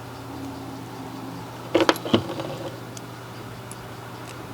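A steady low hum, with a quick cluster of light clicks and knocks about two seconds in as small motor parts are handled and fitted together.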